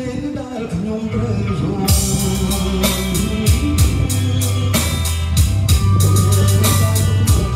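Music played loud through a battery-powered column PA speaker with a subwoofer base. A full drum beat and heavy sustained bass notes come in about two seconds in.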